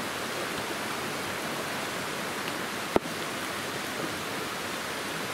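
Steady hiss of vegetables frying in a stockpot on a wood-burning firebox stove, mixed with a rushing stream, broken by one sharp knock about three seconds in.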